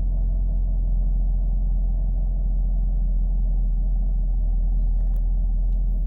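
2022 Chevrolet Camaro engine idling steadily at about 700–800 rpm after a restart, running with no problem.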